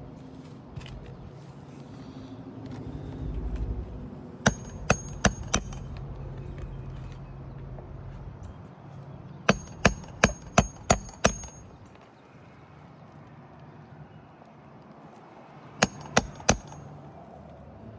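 Craftsman 16-ounce hammer driving roofing nails through a shingle into the roof deck: three bursts of quick strikes, four, then six, then three, each hit with a bright metallic ring.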